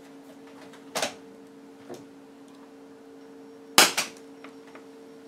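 A sharp crack about a second in, then a loud bang near four seconds in as a thin copper wire, shorted across the secondary of a salvaged UPS mains transformer fed straight from the mains without a variac, explodes.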